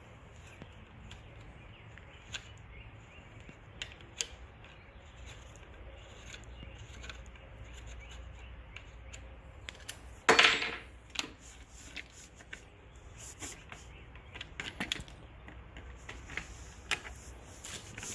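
Scattered small clicks and taps of a hex key and metal bicycle parts as the quill stem with its stem-mounted shifters is loosened and pulled out, with one loud clank about ten seconds in.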